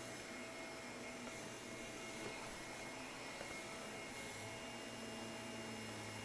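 Shark vacuum cleaner running steadily on carpet: a continuous motor whine with airflow hiss that holds level throughout.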